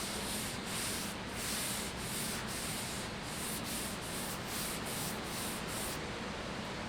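Quick back-and-forth hand strokes rubbing the finish of a wooden stave drum shell, about two strokes a second, stopping about six seconds in. The rubbing belongs to wet sanding the finish flat.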